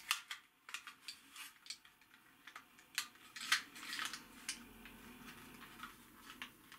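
Irregular clicks and small knocks from Optimus Prime's toy blaster as its parts are pressed, twisted and folded by hand, with a denser flurry of clicks about three and a half seconds in.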